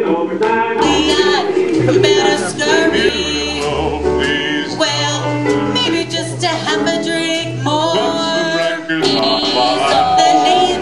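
Stage song: voices singing over instrumental accompaniment with sustained low bass notes.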